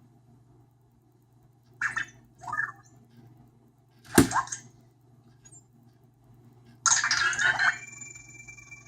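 Anki Vector robot's sounds: two brief chirps about two seconds in, a sharp click just after four seconds, and a longer burst near seven seconds that leaves a steady high tone.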